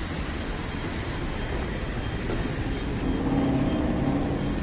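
City street ambience: steady traffic rumble from passing cars, with a steady pitched hum joining about three seconds in.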